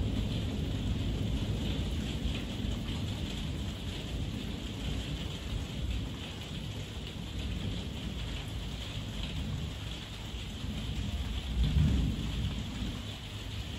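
Heavy rain falling steadily with an even hiss, under low thunder: a rumble fading away at the start and another swelling briefly near the end.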